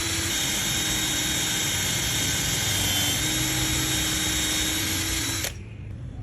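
An electric power tool's motor running steadily at high speed, its pitch dipping briefly about three seconds in, then cutting off about five and a half seconds in.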